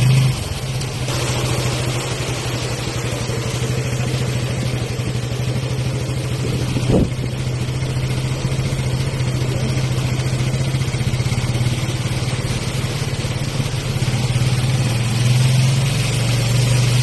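A vehicle engine running steadily with an even low hum, under a steady hiss, with one sharp knock about seven seconds in.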